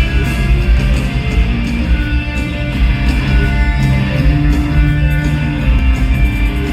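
Live rock band playing an instrumental passage, with electric guitars prominent over a heavy, steady low end.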